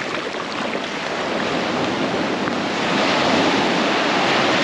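Ocean surf washing on the shore, a wave swelling to its loudest about three seconds in.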